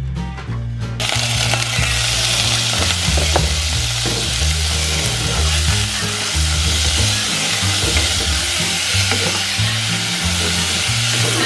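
Ground pork frying with minced onion and garlic in an aluminium saucepan, a loud steady sizzle that starts suddenly about a second in, with scrapes of a wooden spatula stirring it. Background music with a bass line plays underneath.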